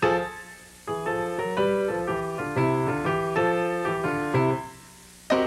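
Piano-sounding keyboard music: a short melody of single notes over held chords, fading out, then a new chord struck near the end.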